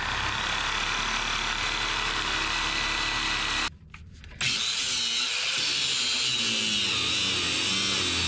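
Angle grinder with a cut-off wheel running and cutting through a seized rear-subframe mounting bolt. It stops for about half a second near the middle, then starts again, its whine wavering under the load of the cut.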